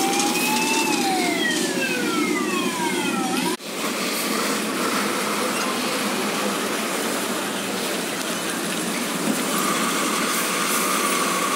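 Fire truck siren in one slow wail, rising and then falling away over about three and a half seconds until it cuts off suddenly. After that, the steady running of heavy fire truck engines and street traffic.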